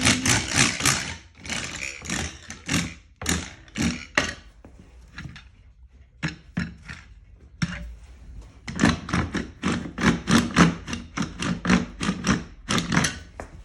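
Rapid, irregular wooden clacks and scrapes as a bent metal cuckoo-clock rod is rolled back and forth between two boards pressed underfoot to straighten it. The clacking eases off for a few seconds in the middle, then picks up again.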